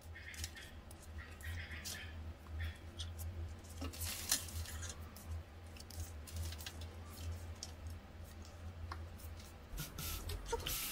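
A stack of photocards being flipped through by hand: soft, scattered clicks and rustles of card sliding over card, over a steady low hum.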